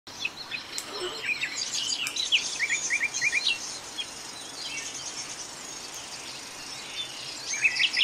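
Several small birds chirping and singing at once, including a quick run of four short rising notes about two and a half seconds in. The chirping thins out in the middle and grows busy again near the end.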